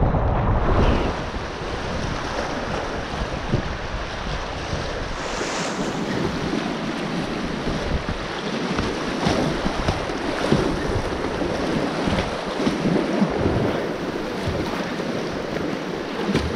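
River rapids rushing against the bow of a Pyranha whitewater kayak, with the paddle splashing in on its strokes as short spikes in the rush, and wind buffeting the microphone.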